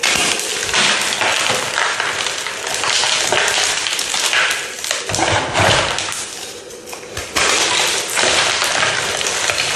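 Dense crunching and crackling with sharp pops as a brittle material is pressed and crushed, going almost without pause and easing briefly about two-thirds of the way through before picking up again.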